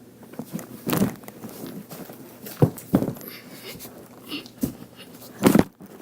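Thumps and shuffling of a person's body on a floor, from a handstand dropped into the worm dance move: a thud about a second in, two more close together a little later, and the heaviest near the end, with smaller knocks and rustling between.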